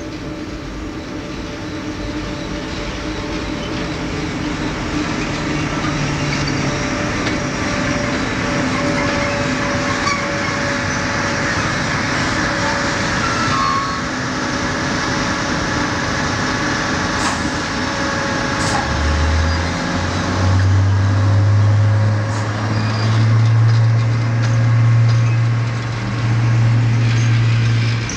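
A train with SŽ class 363 electric locomotives rolling past close by: a steady rumble of wheels on the rails that grows louder. A low, steady hum sets in about two-thirds of the way through.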